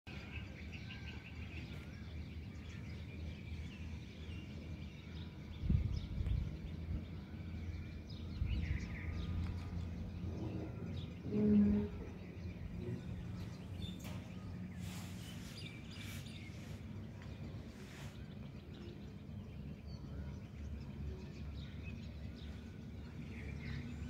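Outdoor ambience: a steady low rumble of background noise with faint bird chirps, clearest in the first few seconds. A few dull knocks about six seconds in and a brief low-pitched tone about halfway through are the loudest moments.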